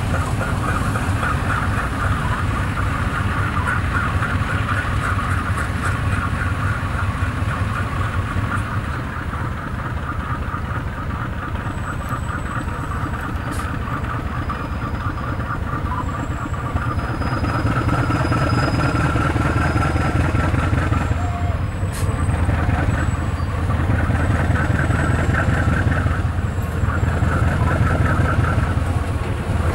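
GE U15C (35 Class) diesel-electric locomotive's V8 diesel engine running steadily as it moves slowly over the track with its train, a low engine hum throughout. A few brief thin high squeals and a couple of sharp knocks come in around the middle.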